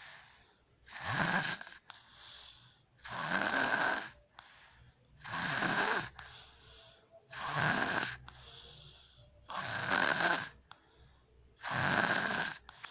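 A young girl snoring loudly in her sleep: a harsh snore on each in-breath, regularly about every two seconds, with a softer breath out between.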